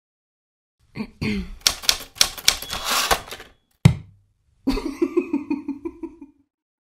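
Typewriter keys clacking in a quick run of strikes, then one loud single hit, then a short, rapid, evenly spaced run of clicks.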